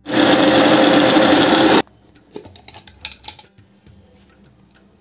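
Kitchen mixer grinder (mixie) running at full speed, grinding rice-and-coconut batter with jaggery, then cut off suddenly after about two seconds. A few faint clicks follow.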